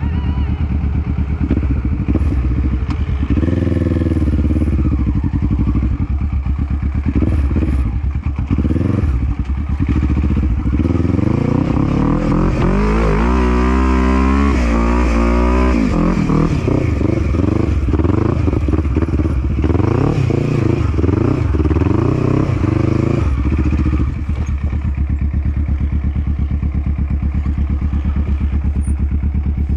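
Sport quad (ATV) engine run hard on sand, its pitch rising and falling with the throttle. The engine revs hardest about halfway through, climbing a steep sand hill, then settles to a steadier, lower running near the end.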